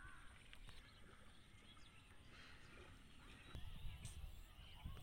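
Faint outdoor ambience: scattered distant bird calls over a low rumble.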